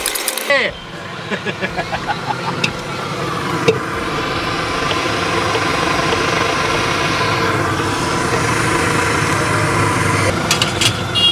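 A steady engine-like hum, as of a vehicle idling, with a few clacks of a metal spatula against an aluminium pot in the first seconds and a quick run of knife taps on a wooden board near the end as tomatoes are chopped.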